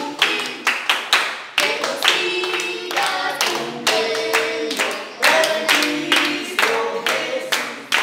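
A small group of people singing together with steady rhythmic hand clapping, about two to three claps a second.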